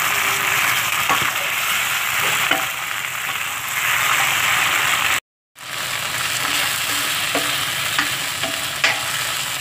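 Chayote slices sautéing in hot oil in a pan: a steady sizzle with the scattered clicks and scrapes of a spatula stirring them. The sound cuts out for a split second a little past halfway.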